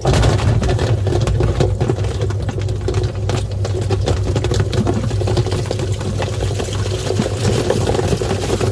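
Washing machine switched on, its motor running with a steady low hum as the tub spins water and small plastic toys, which rattle and click against the drum.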